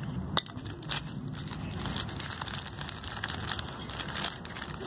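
A small parts bag crinkling and rustling as it is handled and opened, with scattered light clicks and one sharp click about half a second in.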